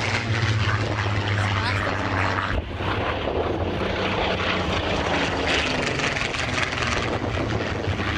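Supermarine Spitfire's piston engine and propeller droning as it flies a display pass overhead, a steady low drone that dips briefly about two and a half seconds in.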